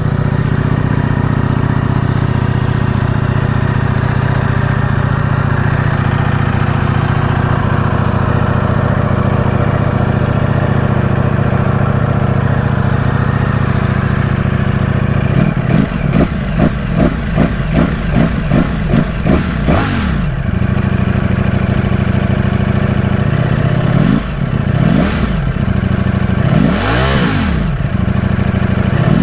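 Ducati Streetfighter V4S's 1103 cc V4 engine idling steadily. About halfway in it gets a quick run of short throttle blips, about two a second. Then come a few longer revs that rise and fall in pitch.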